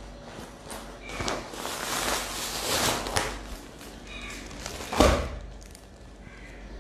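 Plastic packaging around a folded dress set rustling as it is handled and opened, then a single sharp thump about five seconds in.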